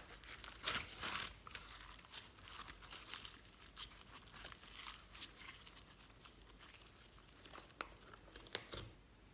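Yellow glitter slime being stretched, folded and pressed by hand, giving off faint sticky crackles and small pops, busiest in the first second or two, with a few sharper clicks near the end.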